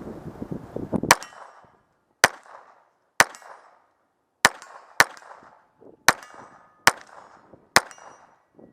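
Browning Buck Mark .22 LR semi-automatic pistol firing eight single shots at an uneven pace of roughly one a second, each a sharp crack with a short ringing tail. The first shot comes about a second in, after some rustling.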